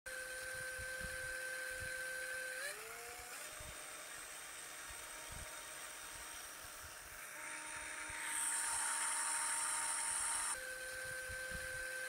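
Cartoon bulldozer engine sound effect: a steady electronic hum that glides up in pitch about three seconds in and stays at the new pitch. From about eight seconds in it is joined by a loud hiss, which cuts off after about two and a half seconds as the first hum returns.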